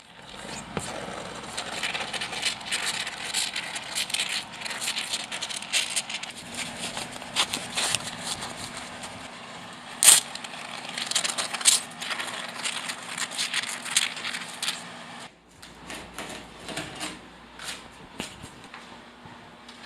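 Handling and work noises: dense crackling, rustling and clicking, with one sharp loud knock about ten seconds in. After an abrupt break about fifteen seconds in, quieter scattered clicks follow.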